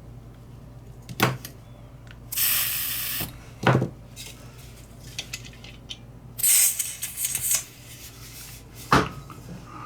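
Two short hisses of pressurised gas, each lasting about a second, come about two and a half and six and a half seconds in. Three sharp clicks or knocks fall between them and near the end.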